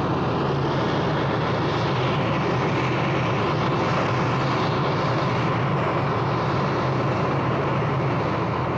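Sound effect of an Eagle transporter's engines: a steady, loud jet-like rushing with a low hum beneath it as the spacecraft comes in to land.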